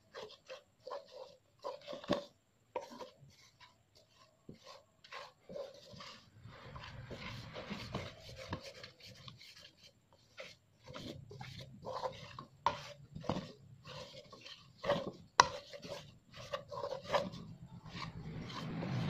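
A spatula scraping and knocking around a nonstick metal saucepan as it stirs a dry, crumbly mix of tapioca flour, cocoa powder and brown sugar into dough. The strokes come irregularly, some ringing briefly off the pan, over a low background rumble that comes and goes.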